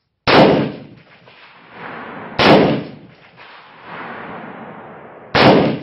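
Three single shots from an FN FAL-pattern 7.62×51mm rifle built on an L1A1 SLR receiver, fired in semi-automatic. They come about two and three seconds apart, and each trails off in a long rolling echo.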